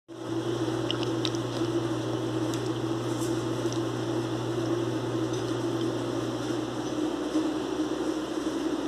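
Steady mechanical hum with a constant mid-pitched tone. A lower drone under it fades out about seven seconds in. A few faint high ticks come in the first four seconds.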